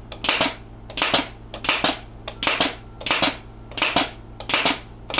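Pneumatic DeWalt 18-gauge brad nailer firing over and over, about seven shots spaced roughly 0.7 s apart. Each shot is a sharp double crack with a short hiss of air.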